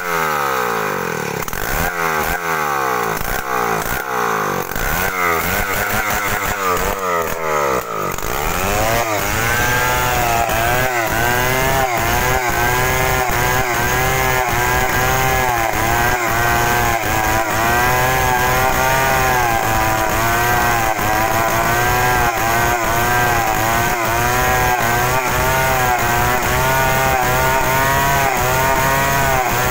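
Two-stroke chainsaw ripping a timber beam lengthwise. The engine rises and falls in pitch over and over for the first several seconds, then holds at high revs under load through the cut, its pitch wavering with the load.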